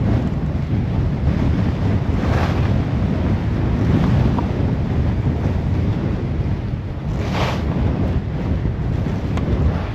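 Wind buffeting the microphone in a steady low rumble while skiing a groomed run, with two hissing swells of ski edges scraping across the snow in turns, about two seconds in and again near seven seconds.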